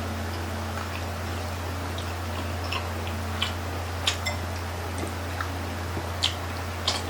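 Chewing and mouth sounds of someone eating grilled chicken-intestine (isaw) skewers: short sharp clicks and smacks scattered through, a few louder ones in the second half, over a steady low hum.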